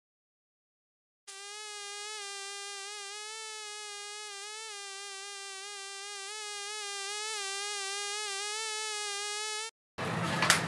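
Honeybee buzzing: a single steady buzz with a slightly wavering pitch, starting about a second in and stopping just before the end, followed by a few sharp clicks.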